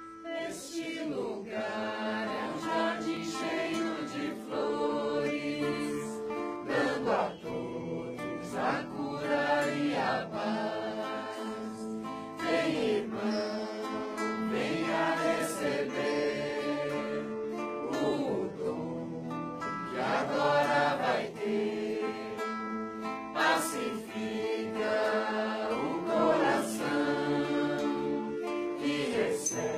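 Background music: voices singing together as a choir over plucked-string accompaniment.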